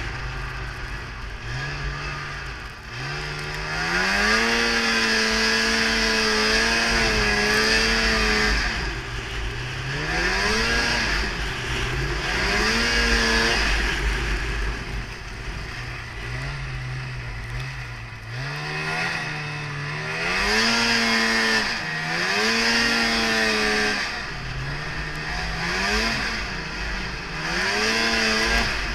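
Polaris Indy Trail 500 snowmobile's two-stroke engine revving up and down over and over as it is ridden through snow, held high for several seconds near the start and then blipped in shorter surges. A low rumble of wind buffeting the microphone runs underneath.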